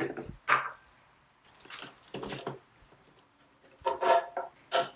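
Handling noises from plastic blender pitchers and a bowl: a knock about half a second in, scraping and rustling around two seconds, then a cluster of plastic clunks about four seconds in and a last sharp knock near the end as a pitcher lid is pulled off and the pitcher is lifted.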